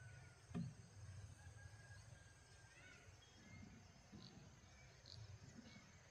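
Faint rural outdoor ambience with scattered short bird chirps over a low rumble, and a single dull knock about half a second in.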